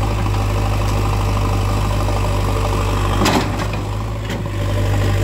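JCB 3DX backhoe loader's diesel engine running steadily while the backhoe arm works, with a short loud clatter of knocks about three seconds in, after which the engine note drops for about a second and then comes back up.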